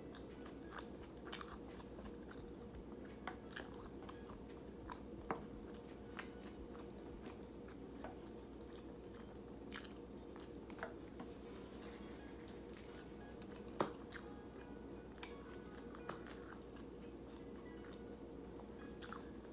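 A person chewing and biting food close to the microphone: irregular soft mouth clicks and crunches, a few louder ones, over a faint steady hum.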